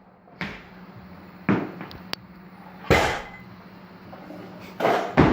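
A few sharp knocks and clanks of a loaded barbell being handled in a weightlifting gym, each dying away quickly, the loudest about three seconds in and a pair near the end.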